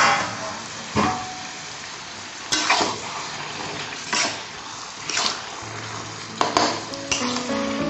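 Flat metal spatula scraping and stirring chicken in masala around a metal kadai, a stroke roughly every second, over a steady frying sizzle.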